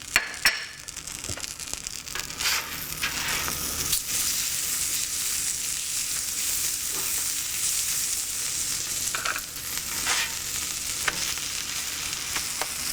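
Butter sizzling in a hot pan as a grilled cheese sandwich fries, a steady crackling hiss. A few sharp clicks break through, two loud ones right at the start.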